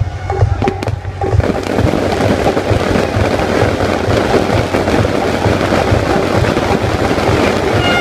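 A dense fireworks barrage: many shells going off in rapid succession, with a continuous crackle over several low booms a second.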